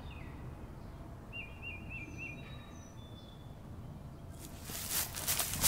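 Birds calling over a steady low rumble: a few short falling chirps, then a quick four-note call and some high thin whistles. Over the last second or so a close rustling and knocking builds up, cattle shuffling and stepping at the fence.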